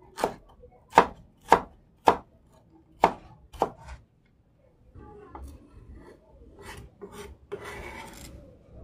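Kitchen knife chopping a red onion on a cutting board: six sharp cuts in the first four seconds, then quieter scraping with a few more cuts near the end.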